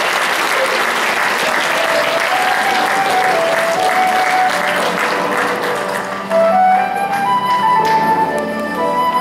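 Audience applauding while a melodic instrumental tune plays; the clapping dies away about six seconds in and the melody carries on more clearly.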